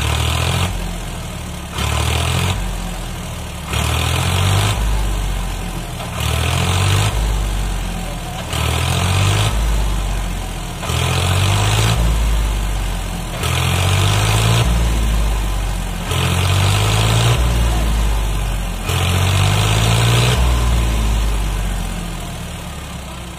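Farmtrac 60 EPI tractor's diesel engine revving hard again and again, surging up and dropping back about every two and a half seconds, as it strains against a fully loaded trolley stuck in deep sand. The revs die down near the end.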